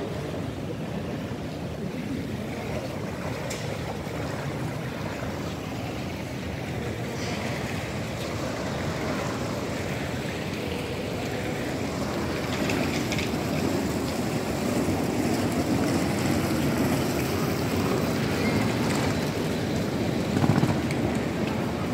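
Ambient noise of a large, busy metro station concourse: a steady rushing hum with no clear voices, growing louder in the second half.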